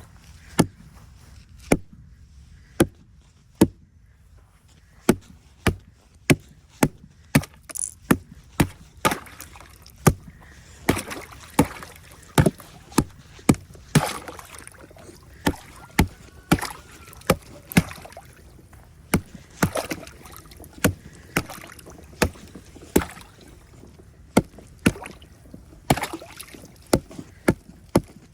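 Ice crunching and cracking in a long irregular series of sharp snaps, about one a second at first and faster, one to two a second, later on, over a low steady background rumble.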